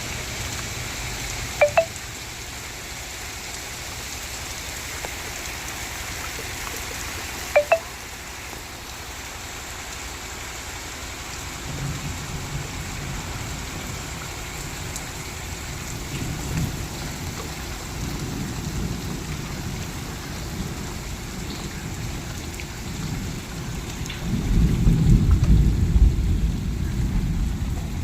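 Heavy rain falling steadily, with a low rumble building in the second half and loudest near the end. Two brief double clicks sound early on, a few seconds apart.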